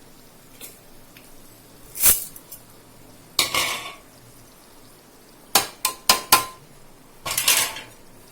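A metal spoon knocking and clinking against a cooking pan and containers, with short scraping strokes through thick masala, as salt, spice powder and curd are added and mixed in. A single sharp knock comes about two seconds in, and a quick run of four clinks, one ringing briefly, comes just past halfway.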